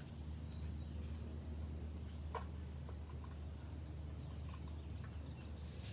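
Insects chirping in a steady, evenly pulsing high trill, over a low steady hum. A soft click about two seconds in.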